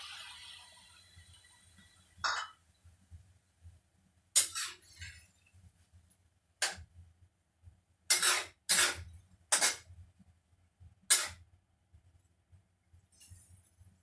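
Sizzling from water poured into a hot wok of stir-fry, dying away over the first two seconds. Then a series of about eight sharp clinks of a metal spatula against the stainless-steel wok, spaced irregularly.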